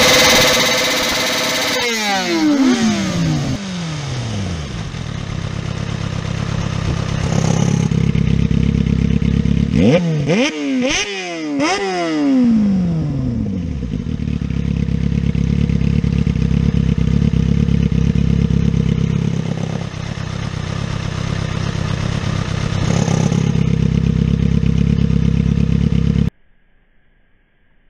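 Sport motorcycle engine running through an aftermarket exhaust with a cut-out valve: high revs fall away to a steady idle, then about ten seconds in three quick throttle blips each rise and drop back, and it settles to idle again. The engine sound cuts off suddenly near the end.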